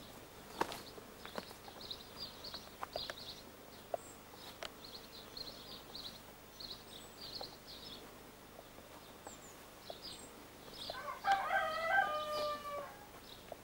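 Small birds chirping in the background, then a rooster crowing once near the end, one call of about two seconds that is the loudest sound here.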